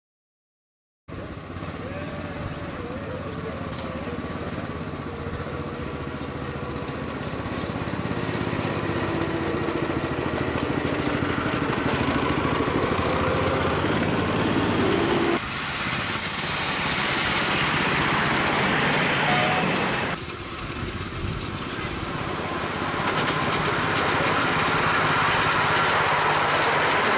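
Small engine of a 7¼-inch gauge miniature diesel-outline locomotive running steadily as it hauls a passenger train, starting about a second in; the sound changes abruptly twice, at about the middle and again a few seconds later.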